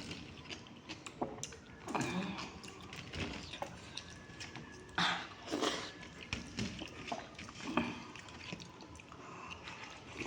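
Close-up eating sounds of a person chewing dahi pakhala, rice soaked in curd water: irregular wet smacks and clicks, with a couple of louder noisy slurps or squelches.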